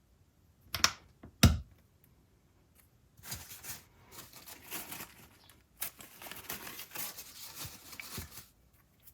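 Small parts being handled at a workbench: two sharp clicks or knocks about a second in, then several seconds of rustling with light clicking, like 3D-printed plastic pieces and small magnets being fitted and set down.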